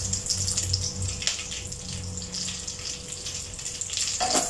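Smashed garlic cloves sizzling in hot cooking oil in a wok, a steady hiss. A wooden spatula starts scraping and stirring them near the end.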